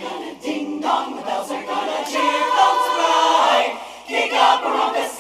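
Women's barbershop chorus singing a cappella in close harmony, with full held chords swelling loudest in the middle.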